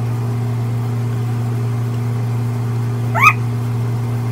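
A steady low hum, with a brief rising squeak about three seconds in.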